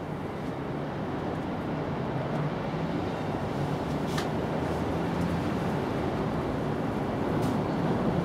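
Steady low rumble of outdoor background noise, with one faint click about four seconds in.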